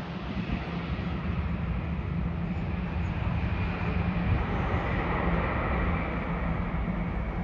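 Jet engines of a Thai Airways wide-body twin-jet airliner, heard as a steady, rumbling roar that swells slightly as the aircraft slows on the runway just after touchdown.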